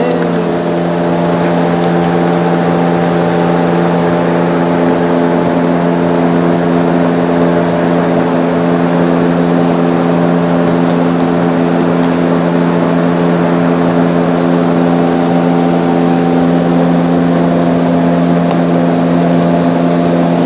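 A loud, steady machine drone, a low hum that holds the same pitch without change, like a motor running continuously.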